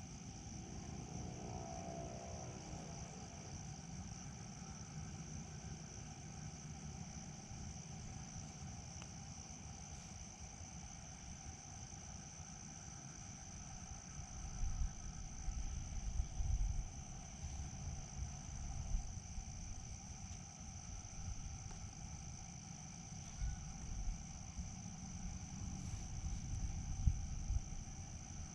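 A steady, high-pitched chorus of crickets, unbroken throughout. From about halfway in, irregular low rumbles on the microphone join it.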